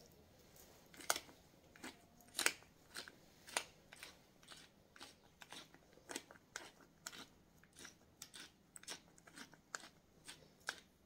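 Faint, irregular crackling and crunching, one or two sharp crinkles a second, as stock cubes are unwrapped from their wrappers and crumbled by hand.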